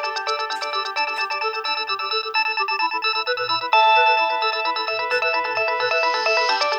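A Nokia 6030 ringtone playing: a quick electronic tune of many short notes with several sounding at once. It gets louder a little over halfway through.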